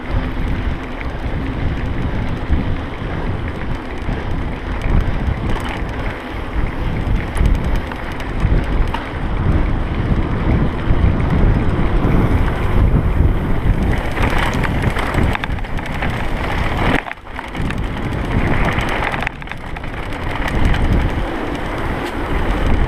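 Wind buffeting the microphone of a camera on a mountain bike ridden along a dirt track, mixed with the rumble of the tyres and irregular knocks and rattles from the bike over bumps.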